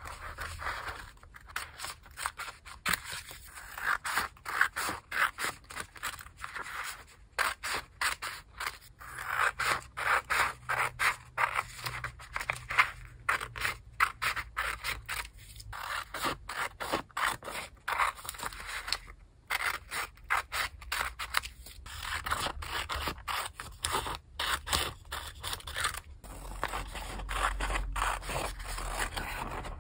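Scissors cutting through sheets of paper stickers: runs of quick, crisp snips with short pauses between. Near the end the sheet rustles as it is lifted.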